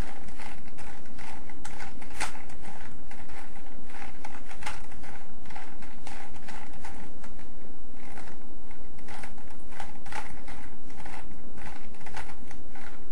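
A 3x3 Rubik's cube being turned by hand: irregular runs of quick plastic clicks and clacks as the layers snap round, with short pauses between turns, while the last two twisted corners are being fixed.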